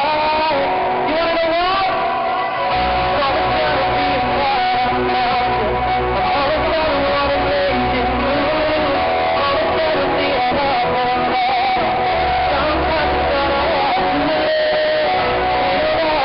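Live pop band music through a loud PA, picked up close to the speakers, with guitar to the fore. A deep bass comes in about three seconds in.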